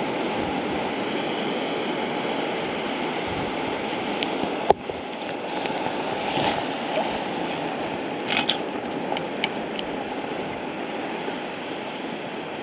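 Steady rush of small sea waves lapping around a wading angler, with wind. A single sharp click about five seconds in and a few lighter ticks around eight to nine seconds in.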